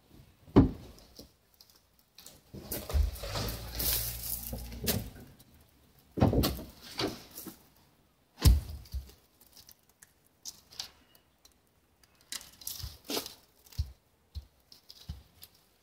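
Heavy pine log rounds being unloaded from a kei truck bed and set down on a stack. There are three loud wooden thuds, about half a second, six and eight and a half seconds in, with a stretch of scraping and rustling between them. Lighter knocks follow near the end.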